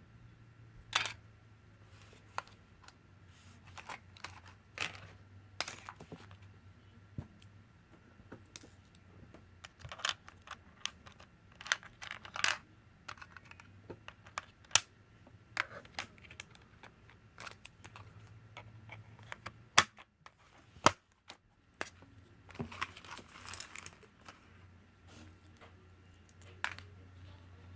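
Irregular light clicks and taps, a couple of sharper knocks among them about two-thirds of the way through, over a steady low hum.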